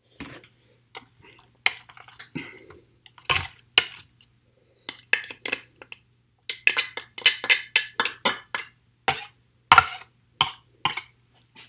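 Spatula scraping and tapping a small glass bowl out over a food processor: scattered clinks and knocks, with a quick run of taps about halfway through.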